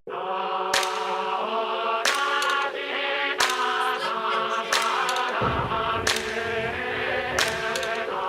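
Background music with choir-like, chanting voices over a held chord and a sharp hit about every second and a half. A deep bass comes in about five seconds in.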